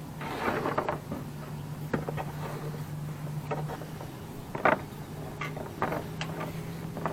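Halyard rope being handled and pulled through the mast: scattered short rustles and knocks, the loudest a little past halfway, over a steady low hum.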